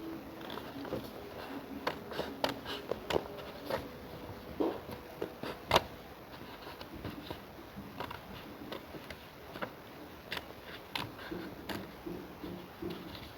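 Scissors cutting paper: irregular snips and paper rustling, with one louder snip about six seconds in.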